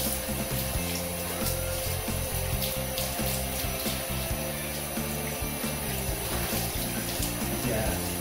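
Water running from a handheld shower head onto a wet cat's fur, a steady hiss, over background music.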